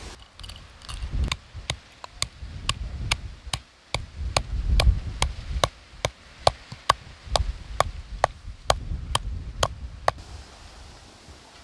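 Stone pestle pounding in a stone mortar: about twenty sharp, evenly spaced knocks, roughly two a second, stopping about ten seconds in. A low rumble comes and goes underneath.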